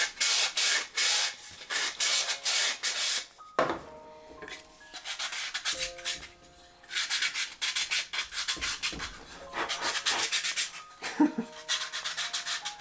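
Sandpaper rubbed by hand in quick back-and-forth strokes against a rocket's cardboard coupler tube and its bulkhead plate. It comes in two bursts: one at the start, and another after a pause of about three seconds.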